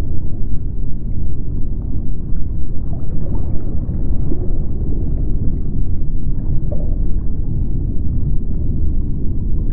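Underwater ambience: a steady, deep rumble of water with a few faint, short, higher tones scattered through it.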